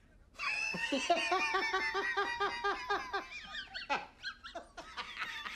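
A man laughing loudly and heartily, starting about half a second in with a quick, even run of ha-ha-ha pulses, then breaking into looser bursts of laughter.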